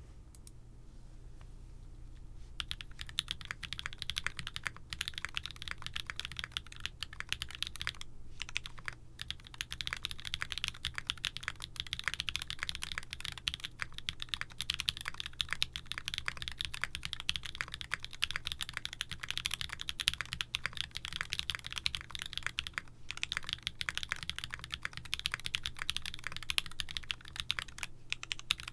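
Typing on a custom mechanical keyboard built with Gateron bottom housings, Cherry top housings and an aluminium plate: a fast, steady run of key clicks and clacks that starts about two and a half seconds in, with a few brief pauses.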